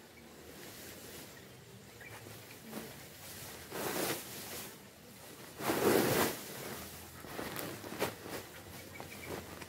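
Fresh indigofera leaves and stems rustling as they are shaken out of a woven plastic sack onto a bamboo tray, in several uneven bursts, the loudest about six seconds in.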